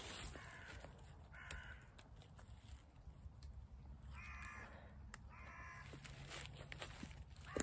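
A bird, crow-like in its calls, cawing four times in short calls spaced one to three seconds apart, over faint rustling. There is a sharp knock near the end.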